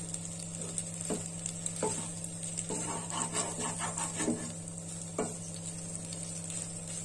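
A spatula stirring cooked macaroni and masala in a metal kadai, with scattered scrapes and knocks against the pan between about one and five seconds in, over a steady sizzle from the pan and a steady low hum.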